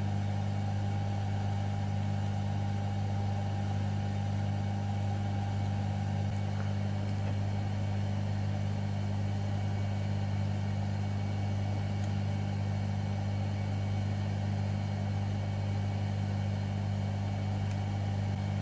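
A steady low hum with strong, even lines near 100, 150 and 200 Hz, the pattern of mains-frequency electrical hum. A faint thin whine on top fades out about six seconds in.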